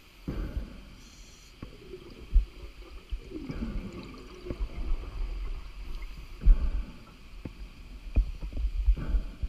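A scuba diver's breathing, heard underwater through the camera housing: a swell of breath noise about every three seconds over a steady low rumble, with scattered low knocks.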